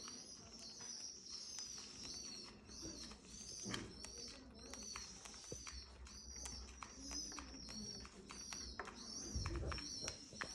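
Cockatiels at feeding time: short, high chirps repeating about twice a second, with light clicks from pecking at food.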